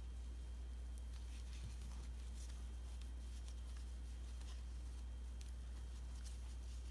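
Faint scratchy rustling and light ticks of 3 mm jute twine being pulled through stitches with a crochet hook over jute rope, over a steady low hum.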